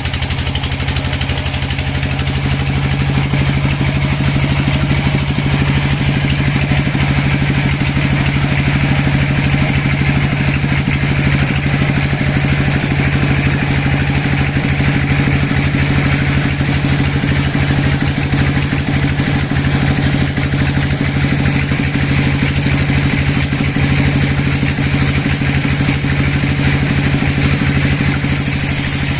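A sawmill's engine running steadily, a constant low drone, with a higher hiss over it that swells and eases off more than once.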